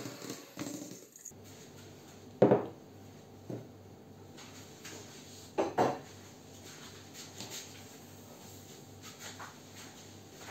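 Electric hand mixer's metal beaters clanking against a stainless steel mixing bowl of cream: one ringing clank about two and a half seconds in and a quick double clank near six seconds, over a faint low hum.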